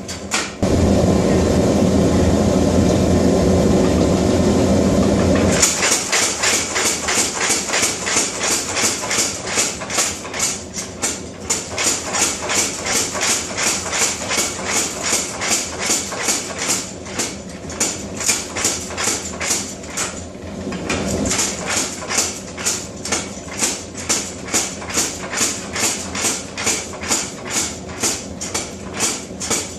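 Power hammer striking hot steel in a fast, even run of blows, a few a second, with a couple of short pauses. Before the blows start there is a few seconds of steady, loud roar.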